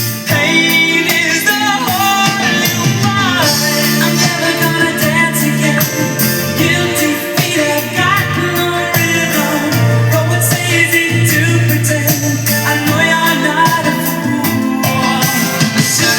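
Pop song playing, with a gliding sung lead melody over steady bass, reproduced through a hi-fi integrated amplifier.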